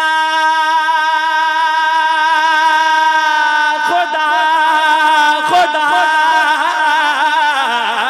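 Unaccompanied male voice singing a naat: a long note held steady for the first few seconds, then breaking into wavering, ornamented runs.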